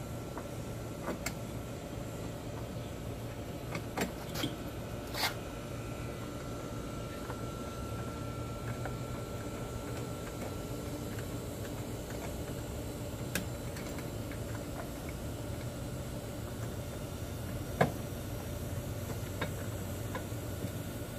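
Scattered sharp clicks and taps of parts being handled and fitted into the front grille opening of a van, while light bar pieces are mounted, over a steady background hum. The loudest click comes near the end.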